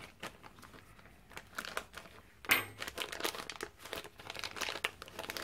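Small plastic parts bag crinkling and rustling in gloved hands, sparse at first, then busier from a sharp crackle about two and a half seconds in.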